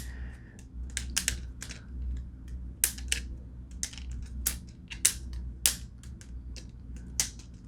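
Balisong (butterfly knife) being flipped by hand: irregular sharp clicks of the handles and latch knocking together, a few a second, over a faint low hum.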